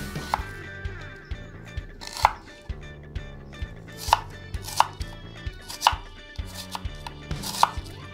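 Chef's knife cutting through an onion and knocking on a wooden cutting board: a dozen or so sharp knocks at uneven spacing, about five of them loud.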